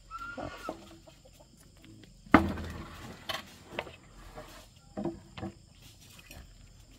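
Farm animals calling, with a short clucking call near the start, and a loud knock about two and a half seconds in followed by several smaller knocks.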